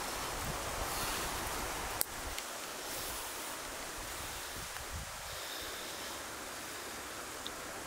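Steady wind noise outdoors, an even hiss with no other clear source, broken by a single sharp click about two seconds in.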